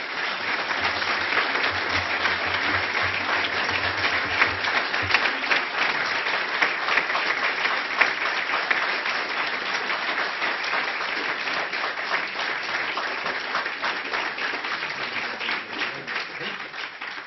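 A large seated audience applauding, a dense, steady mass of clapping that dies away near the end.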